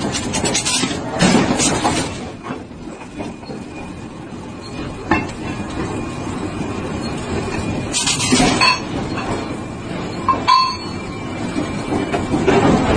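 Steady mechanical rumble with a few sharp metallic clinks and clanks, one of them ringing briefly about two-thirds of the way through.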